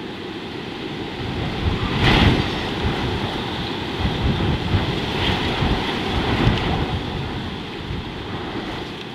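Wind buffeting the microphone: a gusty rushing noise that swells about two seconds in and eases off near the end.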